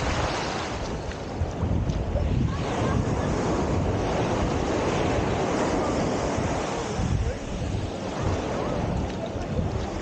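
Wind buffeting the microphone over the steady wash of ocean surf.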